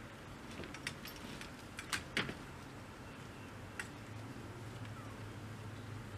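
Metal-framed folding chairs knocking and clattering as they are picked up and carried out of a shed: a few sharp clicks, the loudest pair about two seconds in, with a faint low hum underneath from about four seconds.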